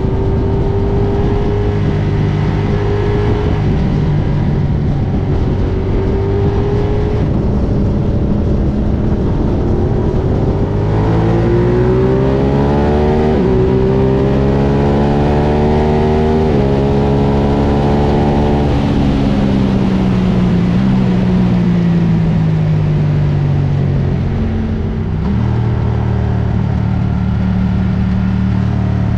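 Ducati Diavel motorcycle engine under way over steady wind rush: it runs steadily, then climbs in pitch as it accelerates, drops suddenly at an upshift midway, and falls away as the bike slows, with another step down near the end.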